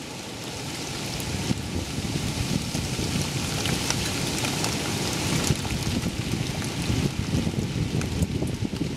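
Hurricane rain falling steadily on a wet deck and garden, a steady hiss dotted with drop ticks, with gusty wind buffeting the microphone in a low rumble; it grows louder over the first couple of seconds.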